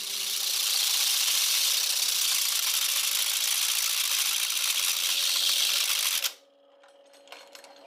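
Steel drill bit being ground against an abrasive wheel: a steady, harsh grinding hiss that stops abruptly about six seconds in.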